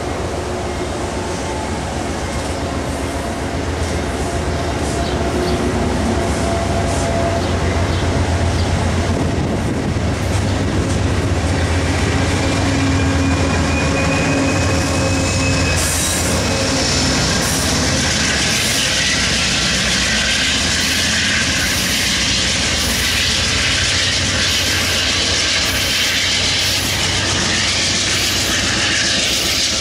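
An Amtrak passenger train's coaches roll past with a steady low rumble and wheels clicking over the rail joints. From about halfway through, a higher hiss of wheel and rail noise builds up.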